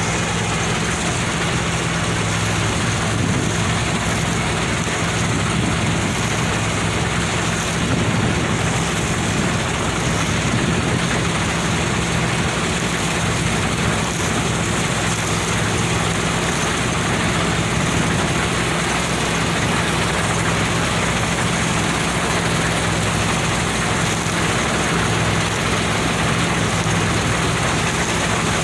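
Deutz-Fahr combine harvester running steadily during wheat harvest: a constant diesel engine drone under an even mechanical rush, with no change in pace.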